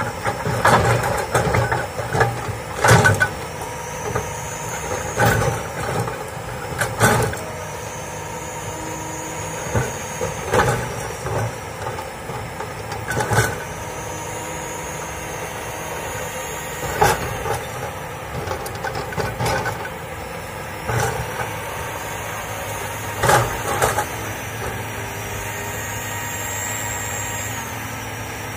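Komatsu hydraulic crawler excavator's diesel engine running steadily under load, with repeated sharp knocks and cracks as the bucket digs into soil and roots. The knocks come thickest in the first few seconds.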